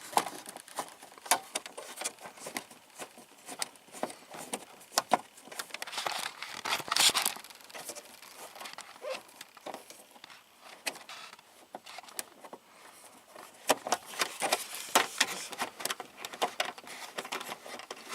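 Scattered small clicks, taps and rattles of a stubby Phillips screwdriver and hands working a screw out of an Oldsmobile Intrigue's plastic steering column trim. There is a longer scuffling rattle about seven seconds in and a quick run of clicks near the end.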